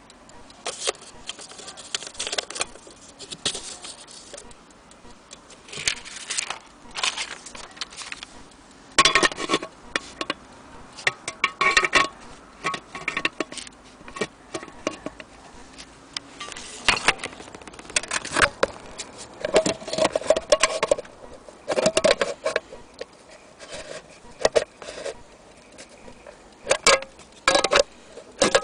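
Antique brass pigeon-racing timing clock being handled: irregular metal clicks, knocks and clinks as the case and its parts are moved and set down, some clinks ringing briefly.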